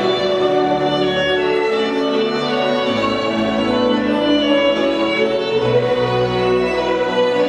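Violin-led string music with long held notes over a low bass.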